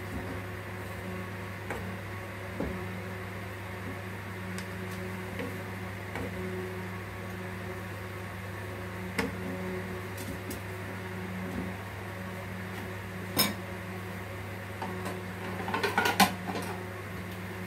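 Kitchen pot and utensils knocking now and then over a steady low electrical hum, with one sharp knock about three-quarters of the way through and a short burst of clattering near the end.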